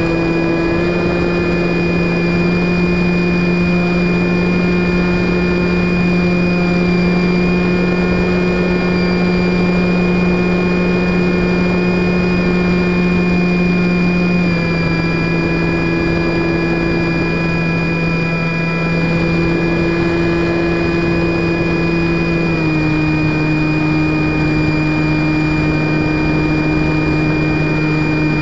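Electric motor and propeller of an FPV Raptor model plane running steadily in flight, heard from its onboard camera with wind rushing past. Its whine drops slightly in pitch in small steps, about halfway and again later, as the throttle changes.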